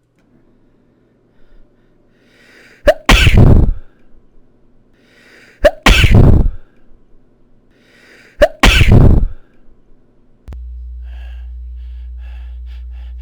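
A person sneezing three times, about three seconds apart, each sneeze preceded by a short catching in-breath. A steady low hum starts about ten and a half seconds in.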